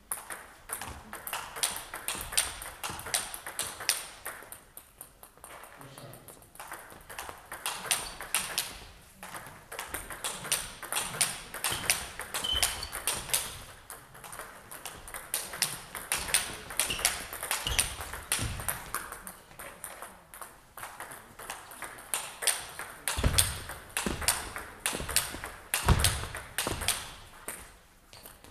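Table tennis rally: the ball clicking sharply off racket and table several times a second as forehand strokes are played, in runs broken by short pauses. A few low thuds sound in the second half.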